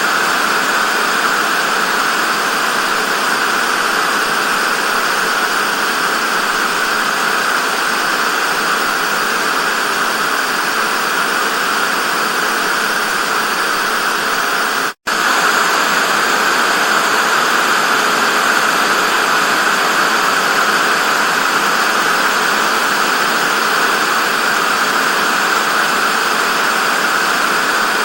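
Television static: a loud, steady hiss of white noise, which cuts out for an instant about halfway through.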